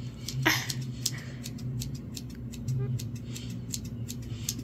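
Scissors snipping through a lock of hair in a quick, uneven run of small crisp snips, over a steady low hum.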